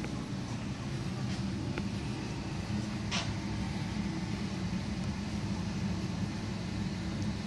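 Steady low mechanical hum, with a single short click about three seconds in.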